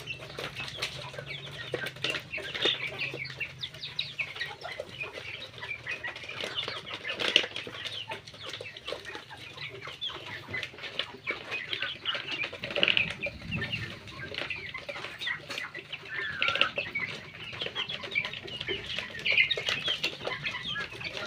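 A flock of young chickens peeping and cheeping continuously while they feed, with many quick pecking taps and scuffles mixed in.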